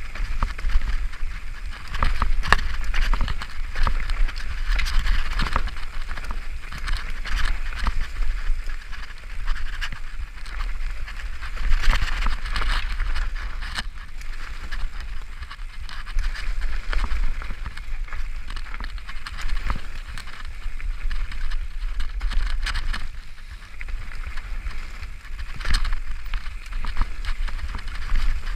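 Mountain bike descending a dirt forest singletrack: tyres crunching over dirt, leaves and stones, with many sharp rattles and knocks from the bike over bumps and a steady low rumble of wind and vibration.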